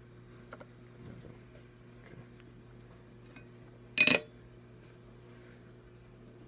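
Faint handling clicks, then about four seconds in one brief, loud metallic clink of a small metal part or tool knocking on a hard work surface, over a low steady hum.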